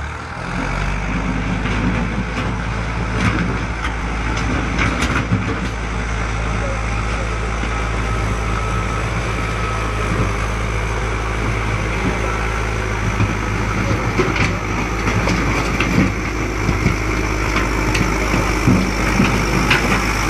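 Diesel engine of a Volvo BM EL70 backhoe loader running steadily, with occasional short knocks and clatter over the drone.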